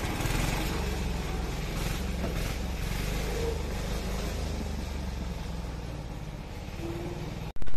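Engine of a two-wheel walking tractor (patpat) pulling a loaded trailer, running with a steady low chugging pulse as it drives off up a grassy track and slowly fades. The sound breaks off suddenly near the end with a short loud thump.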